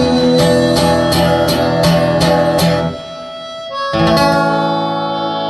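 Live acoustic guitar strumming steadily with harmonica playing over it as the song's closing bars. The music drops back about three seconds in, then a final chord rings out.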